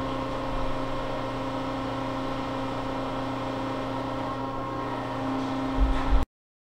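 Landis universal cylindrical grinder running under power, its table traversing: a steady machine hum with several fixed tones. Near the end there is a low thump, and then the sound cuts off suddenly.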